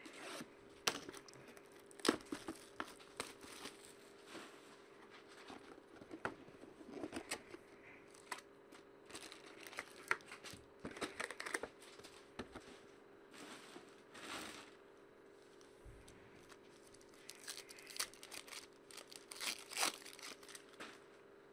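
Hands opening a sealed trading card box and handling foil card packs: crinkling foil wrappers, tearing cardboard and paper, and sharp taps in irregular bursts. A faint steady hum runs underneath.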